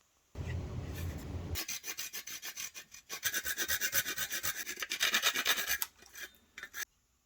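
Wood being rubbed by hand with rapid back-and-forth strokes, about ten a second, as in hand sanding or rasping. A lower, rougher rub comes first and lasts about a second. The strokes stop a little before the end.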